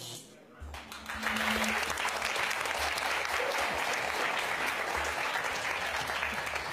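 Studio audience applauding, starting about half a second in as a short music sting ends, and holding steady through the rest.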